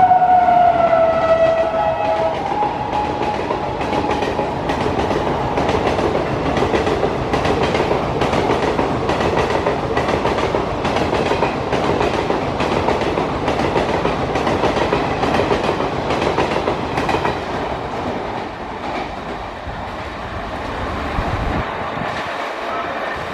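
Express train passing through a station at speed: the locomotive's horn sounds and drops in pitch as it goes by, then the coaches rattle past with a steady run of wheel clicks over the rail joints, fading toward the end.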